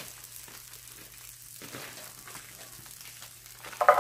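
Sugar snap peas sizzling quietly in oil in a skillet, with faint crackles and a plastic bag rustling. Near the end there is a sudden louder burst.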